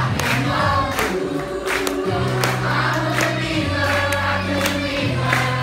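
A stage-musical number: a cast singing together over instrumental accompaniment with a steady beat and held bass notes.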